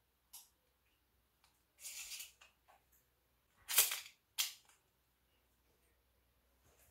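A small plastic combination lock being worked by hand: a short click, a brief scraping rasp about two seconds in, then two loud sharp snaps about half a second apart near the middle.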